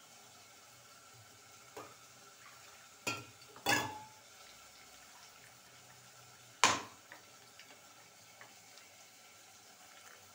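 Kitchen utensils knocking and clinking while coconut milk is squeezed and strained: two sharp knocks about three seconds in, a louder single knock a little past the middle, and a few light clicks.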